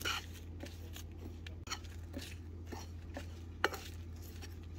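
Metal spoon scraping and clinking against a pan as dry ground spices are stirred together, in irregular strokes about twice a second, over a steady low hum.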